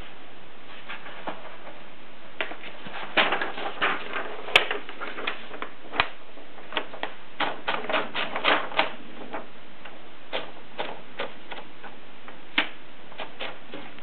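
Irregular clicks and clacks from the platen and carriage of a 1937 Erika 5 portable typewriter as a sheet of paper is fed in, sparse at first, thickest about three to nine seconds in, with a few sharper single clicks.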